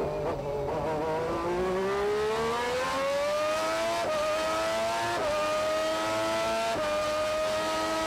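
Honda V12 of a McLaren MP4/6B Formula One car heard from onboard, accelerating hard out of a slow corner. It climbs steadily in pitch and changes up three times, about four, five and seven seconds in, then holds high revs near the end.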